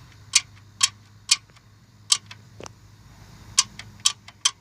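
Sharp metallic clicks, about a dozen at uneven intervals, from a rocker arm in a Ford 4.6 SOHC engine's valve train being moved back and forth by hand. The owner takes this as too much play in the rocker and suspects it is the source of his engine noise.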